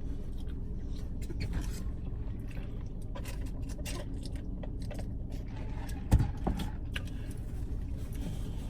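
A person eating pasta: chewing, with a fork clicking and scraping in a takeout container, and a sharper knock about six seconds in, over a steady low rumble inside a car.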